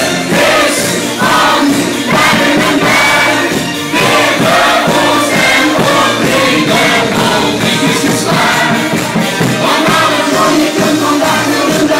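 Loud, steady party music with a group of voices singing together over the backing.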